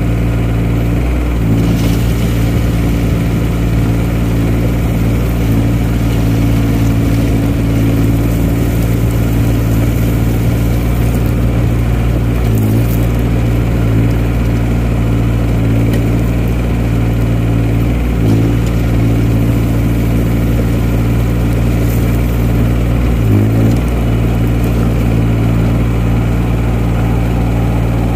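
JCB 8018 mini excavator's three-cylinder diesel engine running steadily while the machine works gravel. Its note dips briefly four times as load comes on.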